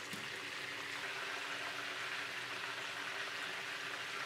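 Halved quails deep-frying in hot oil in a frying pan: a steady sizzle.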